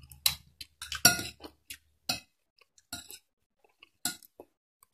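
Metal spoon and fork clinking against a bowl of rice while eating: a string of short, irregular clinks, the loudest about a second in.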